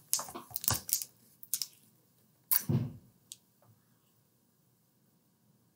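Plastic sports-drink bottle being handled and its screw cap twisted open: a quick run of sharp clicks and crackles, with one louder crackle about two and a half seconds in.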